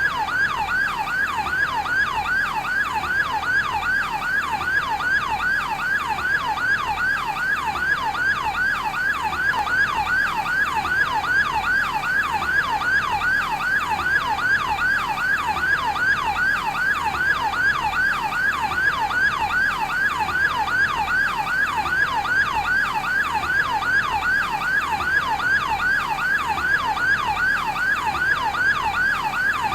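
Electronic yelp siren of a fire brigade advanced life support ambulance: a fast up-and-down pitch sweep repeating about three times a second, steady and unbroken.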